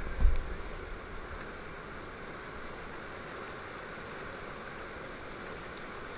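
Steady rush of whitewater river rapids, with a brief low thump on the microphone just after the start.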